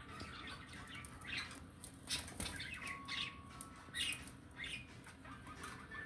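Budgerigars chirping and chattering in many short calls, with light clicks of beaks pecking at seed and a brief flutter of wings.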